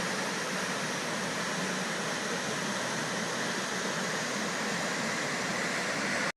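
Krimml Waterfalls: a loud, steady rush of falling water, cutting off suddenly near the end.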